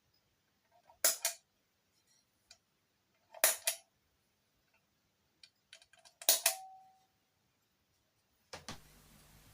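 Three pairs of sharp clicks or knocks a couple of seconds apart, the last one ringing briefly, then a steady low electrical hum starts near the end.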